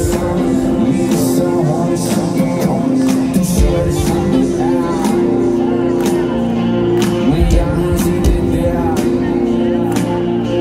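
Rock band playing live on stage: drums with a steady beat and kick drum under sustained chords, with some singing.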